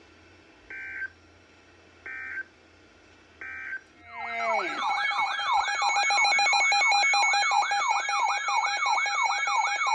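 Three short bursts of weather-alert data tones, the SAME header of a NOAA Weather Radio warning, about 1.4 seconds apart. About four seconds in, a weather radio's loud warbling alert alarm starts, sweeping up and down about two and a half times a second: the receiver signalling an incoming warning.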